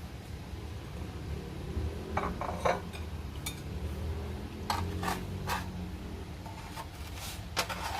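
Dishes and cutlery clinking and knocking as food is set out on a plate: a scattering of short, light clinks, some ringing briefly, over a low steady background hum.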